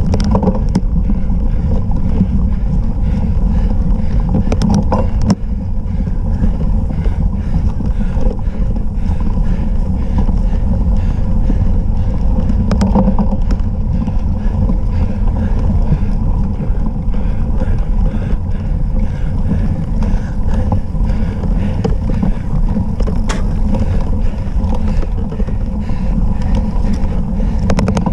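Steady rumble and wind buffeting picked up by a camera mounted on a cyclocross bike riding over rough dirt and grass, with a few sharp knocks from bumps in the ground.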